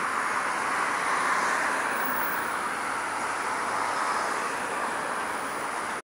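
Steady rushing road noise of passing traffic, swelling about a second in and slowly easing, then cutting off abruptly at the end.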